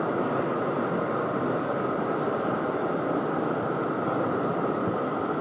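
Steady running rumble of a large-scale model train, a red Rhaetian Railway electric locomotive hauling freight wagons along the track, over an even background din of an exhibition hall.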